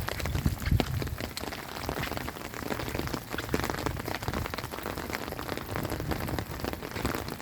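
Steady rain falling, a dense hiss of many small drop impacts, with a few low thuds in the first second.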